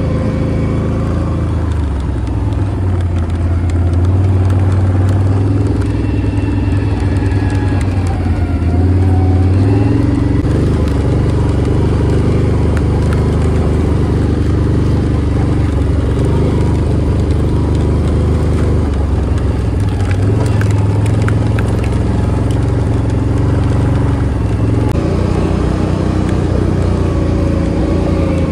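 Quad bike engine running steadily as it drives across a field, its pitch rising and falling with speed. A border collie riding on it snaps its jaws shut now and then, heard as short sharp clicks over the engine.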